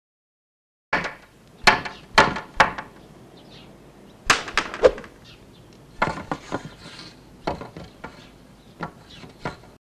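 Cartoon sound effects of hammering and knocking on a wooden door: about a dozen sharp blows, irregularly spaced, with quieter stretches between them.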